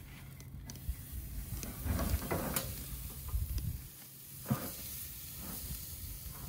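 Meat sizzling on a hot barbecue grill, with a few knocks, the sharpest about four and a half seconds in.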